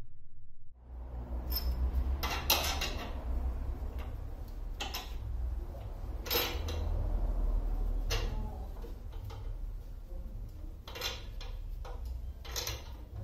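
Scattered metallic clinks and knocks as parts of a motorcycle are handled, over a steady low rumble.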